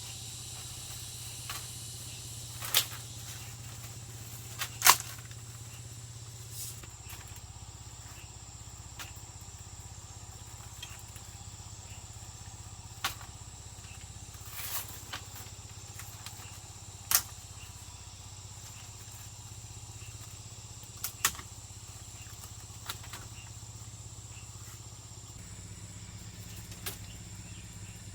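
Tool strikes on bamboo: sharp single knocks spaced irregularly, several seconds apart, over a steady low hum and a thin high steady tone.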